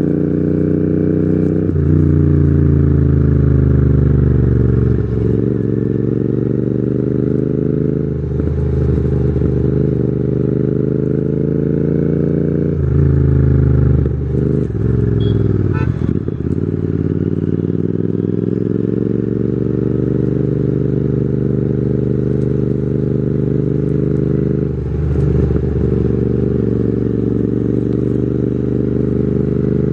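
Royal Enfield Continental GT 650's parallel-twin engine through loud aftermarket Red Rooster exhausts, ridden at speed: the engine pitch climbs steadily, then breaks and drops sharply at each gear change, about six times, before climbing again.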